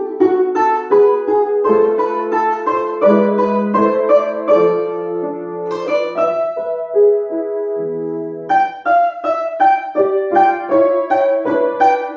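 A solo instrument playing a classical dance piece: a quick melody of short notes, with a stretch of long-held lower notes near the middle.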